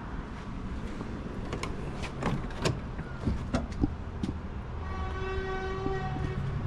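Scattered light knocks and clicks over a low background hum, then near the end a horn sounds once, a steady single-pitched tone held for just over a second.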